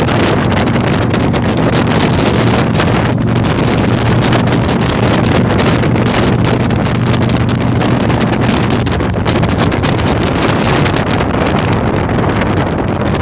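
Heavy wind buffeting on the microphone over the steady running of a Yamaha Virago 1100's V-twin engine at riding speed. The wind noise is the loudest thing, with the engine's low drone beneath it.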